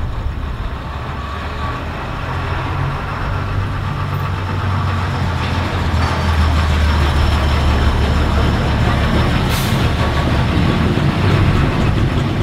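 Diesel locomotive engine running with a steady low drone that grows louder about halfway through. A short hiss comes near the end.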